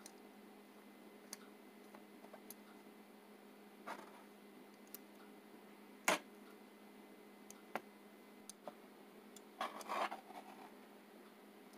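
Metal kitchen tongs clicking and scraping against a pan while turning slices of puffball mushroom. The light ticks are scattered, with the sharpest click about six seconds in and a cluster of knocks and scrapes near ten seconds, all over a faint steady hum.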